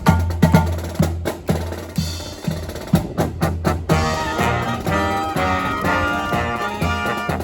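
Marching band drum line playing a percussion cadence on snare and bass drums with strong, regular beats. About four seconds in, the brass and wind section comes in with sustained chords over the drums.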